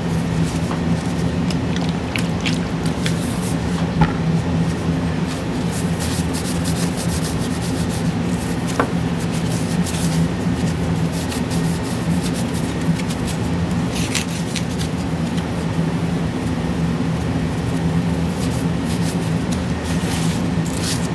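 A metal GPU back plate being wiped down with alcohol: steady rubbing with a few light clicks, over a steady low hum.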